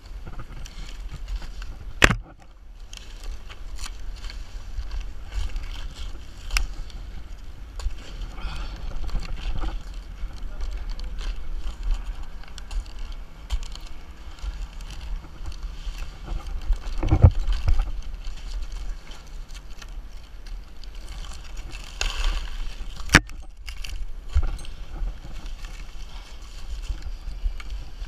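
Dead, dry Washingtonia palm fronds rustling and crackling as gloved hands grip and pull at them. A few sharp snaps or knocks come through, the loudest about two seconds in and again about midway, over a steady low rumble.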